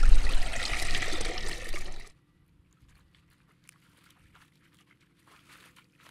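Water splashing and trickling with a low rumble as a caught fish is let back into the water. It cuts off abruptly about two seconds in, leaving near silence.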